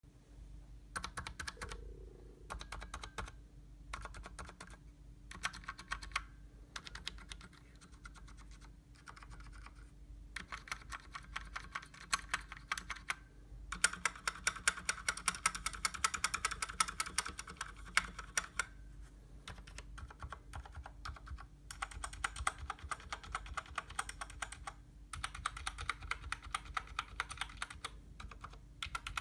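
Typing on a COX Dauntless mechanical keyboard with Cherry MX Silent Red switches, its switches and stabilizers unlubricated: streams of short key clicks in bursts with brief pauses between them, fastest and densest in a run about halfway through.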